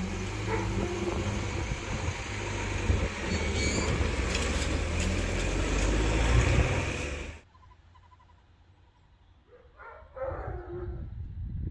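Level crossing barriers rising, with a steady low rumble and road-vehicle noise. The sound cuts off abruptly about seven seconds in, leaving a much quieter scene with a faint passing sound near the end.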